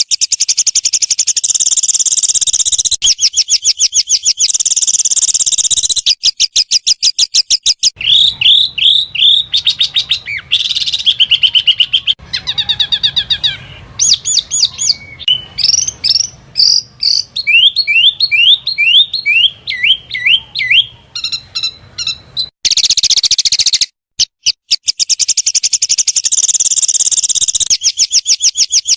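High, rapid trills and fast runs of chirping and sweeping notes from small songbirds, spliced into blocks of a few seconds that switch abruptly from one call to the next, with a brief gap about two-thirds of the way through. It is a 'tembakan' (rapid-fire call) training recording, played for competition songbirds to copy.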